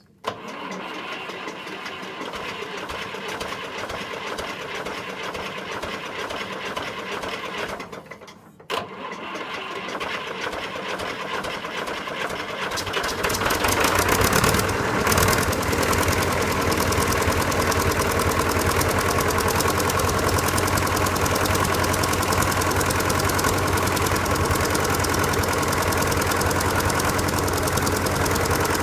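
1958 Fordson Power Major's four-cylinder diesel engine cranked by its starter for about eight seconds, a short break, cranked again, then catching about thirteen seconds in and settling into a steady idle: a first start after standing unused for some time.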